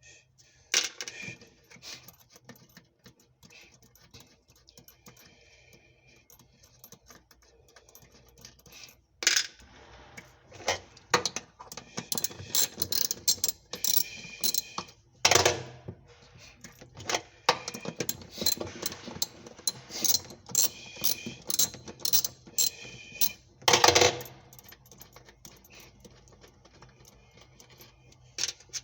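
Tools and parts being handled while a washing machine is taken apart: irregular clicks and knocks, busiest in the middle, with a few louder knocks.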